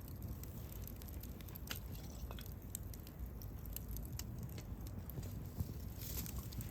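Wood campfire crackling, with scattered sharp pops and snaps over a steady low rumble of the flames.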